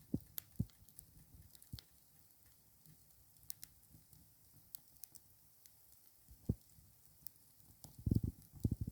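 Wood fire crackling faintly, with scattered sharp pops and ticks and a few dull low thumps, which come in a quick cluster near the end.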